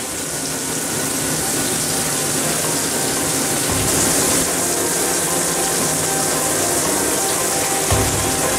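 Steady rush of running or aerated water in a bathtub holding live crayfish.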